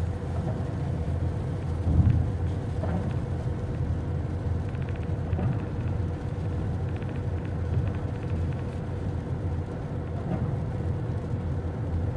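Steady road noise of a car driving on a wet interstate, heard from inside the cabin: a low rumble of tyres and engine with a faint steady hum, and one thump about two seconds in.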